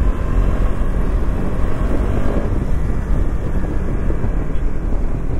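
Motorcycle ride heard from a camera on the bike or rider: a steady rush of wind on the microphone with engine and road noise underneath.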